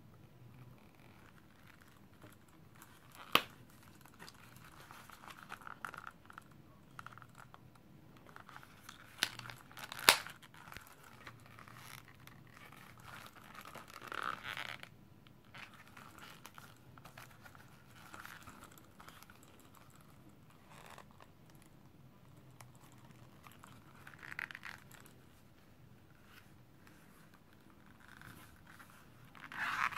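Faint rustling and rubbing of a vegetable-tanned leather wallet being handled, opened and flexed, its pockets pushed at by hand. Two sharp clicks stand out, about three seconds in and about ten seconds in.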